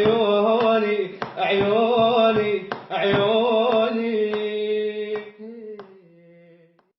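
Closing bars of an Arabic song: a held, wavering melody over a steady low drone, with a few sharp percussion strokes, fading out over the last two seconds.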